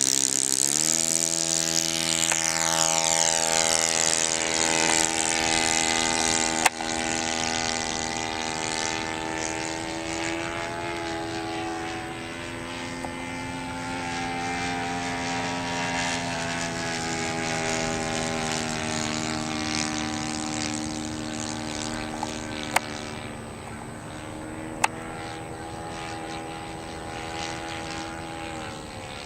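Radio-controlled model airplane's motor and propeller, throttling up about a second in, then running with a slowly wavering pitch that gradually gets quieter. A few sharp clicks stand out, one early and two near the end.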